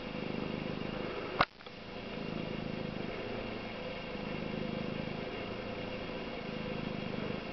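Domestic cat purring steadily while being stroked, the low purr swelling and fading with its breathing. One sharp click about a second and a half in.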